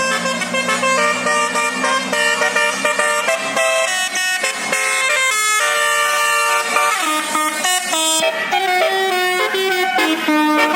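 Bus 'telolet basuri' musical air horn playing a tune: a quick run of held and stepped notes, with a few sliding notes about two-thirds of the way through.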